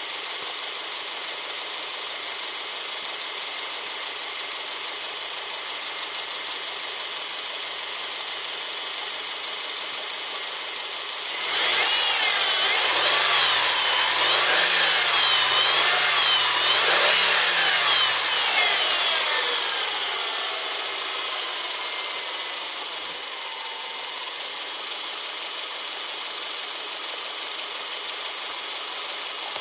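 Subaru EJ253 2.5-litre flat-four engine idling, then revved up and down several times from about twelve seconds in, settling back to idle after about eight seconds of revving.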